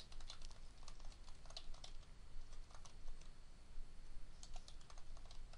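Computer keyboard typing: a quick, uneven run of quiet keystrokes as a short phrase is typed out.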